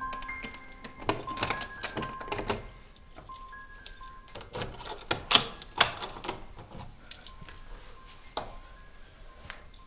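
Metal clicks and rattles of a door knob and lock being worked by hand, a run of sharp clicks between about one and seven seconds in, over soft background music.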